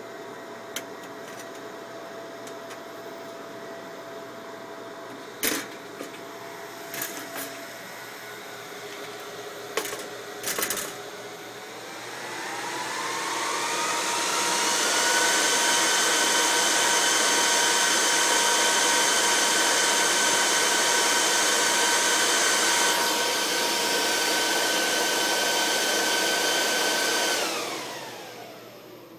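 Dell rack server's bank of cooling fans running with a steady hum, broken by a few clicks and knocks as the cover is unlatched and lifted off. About twelve seconds in, the fans spin up in a rising whine to full speed, which the cover being off brings on, and run loud and steady like a jet before spinning down near the end.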